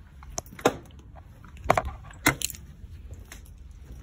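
Half a dozen irregular sharp clicks and clattering knocks, the loudest bunched between about one and a half and two and a half seconds in.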